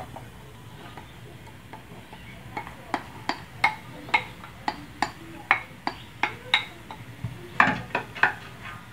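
Wooden spatula tapping and scraping against a ceramic bowl as chopped onion is pushed out of it into a pot. After a quiet start come a dozen or more short, sharp taps, about two a second.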